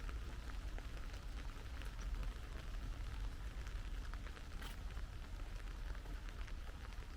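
Steady rain falling, with many individual drops pattering and ticking close by over a constant low rumble.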